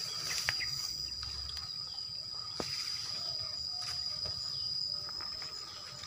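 Insects trilling in one steady, high-pitched note, with a few faint short clicks and chirps over it.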